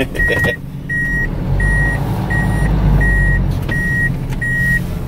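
Mitsubishi Fuso FG140 truck's backup alarm beeping steadily in reverse, about one and a half beeps a second, over the low running of its engine.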